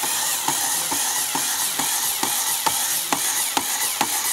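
Small Lego electric motor driving a homemade hydraulic pump in a water reservoir, running steadily with a sharp click a little over twice a second.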